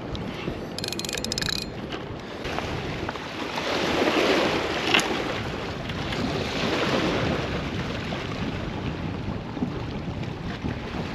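Wind buffeting the microphone over lapping bay water, swelling in gusts about four and seven seconds in. There is a brief run of rapid clicking near the start and one sharp click about five seconds in.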